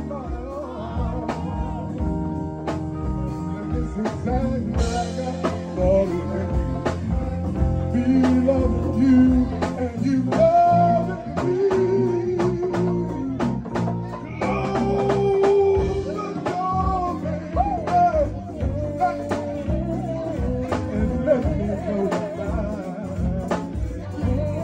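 Live band playing: electric guitars and drums keeping a steady beat, with singers on microphones.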